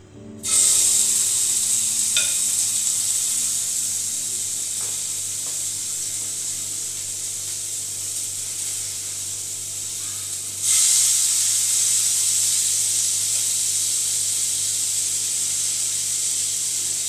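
Marinated chicken pieces hitting a hot oiled frying pan and sizzling, starting suddenly about half a second in and slowly easing off. It flares up loudly again about ten and a half seconds in as more chicken goes into the pan. A couple of light clicks come through in between.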